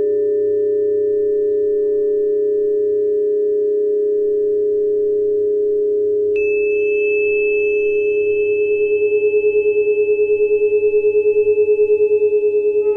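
A steady, pure-sounding 417 Hz Solfeggio tone held as a drone, with fainter steady tones below and above it. About six seconds in a higher ringing tone comes in sharply, and from then on the sound pulses in a quick, even throb.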